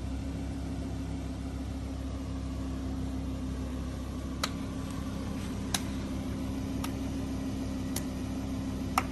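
Car engine idling with a steady low hum; about halfway through, a series of sharp clicks begins, one roughly every second.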